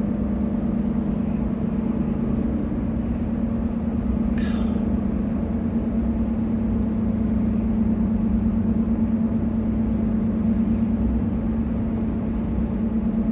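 Steady engine and road noise inside a moving pickup truck's cab, with a constant low drone. A brief hiss about four and a half seconds in.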